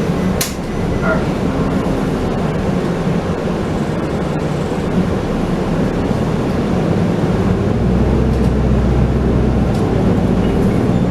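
A city bus's engine running, heard from inside the passenger cabin, with steady rumble and road noise. There is a sharp click just after the start, and the low engine drone swells for about two seconds around eight seconds in.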